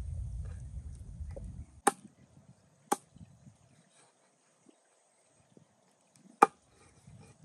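A cleaver chopping through raw chicken on a wooden chopping board: three sharp strikes, about a second apart and then one more after a pause of three seconds. A low rumble fills the first couple of seconds.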